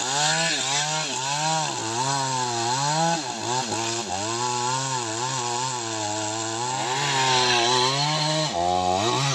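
Two-stroke chainsaw sawing through the thick trunk of a large tree, its engine pitch rising and falling over and over as the chain bites under load and frees again. Near the end the engine briefly drops lower, then picks back up.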